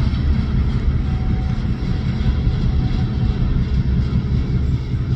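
Ferromex freight train running past with a steady low rumble; no horn sounds.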